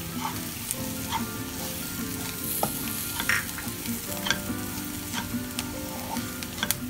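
Onions, green chillies and spice powders frying in oil in a kadai, sizzling, while a slotted spatula stirs them, tapping and scraping against the pan many times. This is the masala being sautéed with coriander, chilli and turmeric powders.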